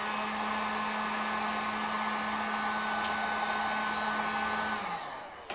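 Electric heat gun running steadily with its fan motor humming, blowing hot air to shrink polyester covering tight on a model wing. Near the end it is switched off and the motor winds down.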